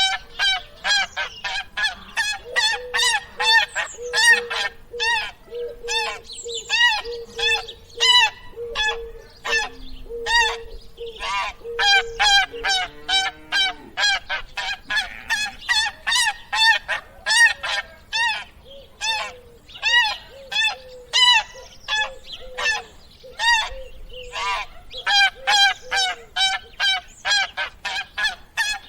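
Geese honking: a dense run of short, overlapping calls, several a second, with a steady held tone underneath for about the first half.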